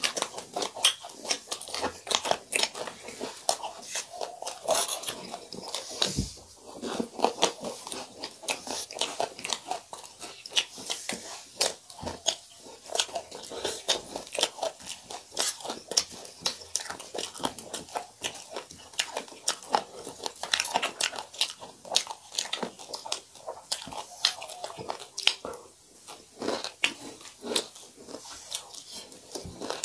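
A person chewing and crunching crisp food close to the microphone: a dense, continuous run of crackling bites and chews.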